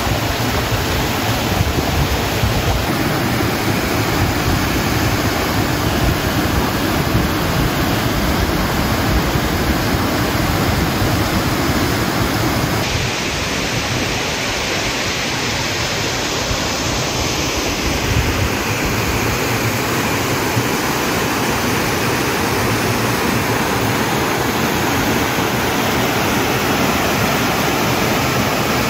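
Waterfall rushing steadily, a constant hiss of falling water, with a slight shift in its tone about halfway through.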